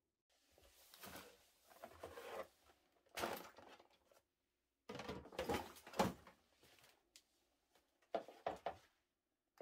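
White plastic storage baskets and the bottles in them being handled and set onto a wooden pantry shelf. There are four bouts of knocking and rustling, with quiet gaps between them.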